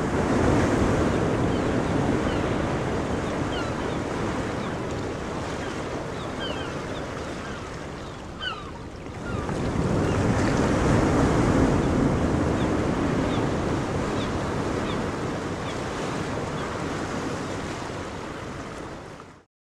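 Ocean surf: waves rushing in, in two long swells, the second rising about halfway through, with faint short high chirps scattered over it. It cuts off suddenly just before the end.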